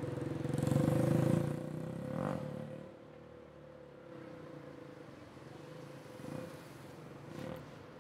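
A motor vehicle driving past, its engine loudest about a second in and fading away within about three seconds, over a steady hum.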